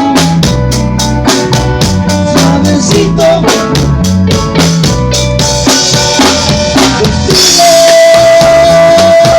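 A band playing at a sound check: a drum kit keeps a steady beat over a moving bass line. About seven seconds in the drum hits give way to a cymbal wash and one long held note.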